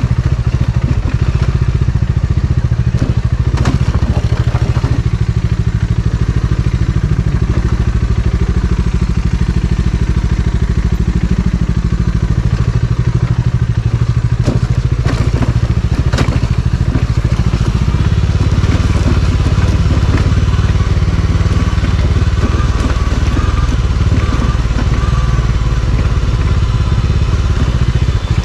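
Motorcycle engine running steadily while riding, with a few sharp knocks and rattles.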